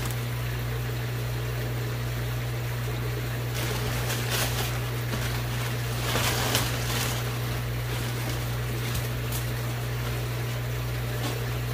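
Clear plastic bag liner rustling and crinkling as it is handled inside a large foam shipping box, in two spells about three and a half and six seconds in, over a steady low hum.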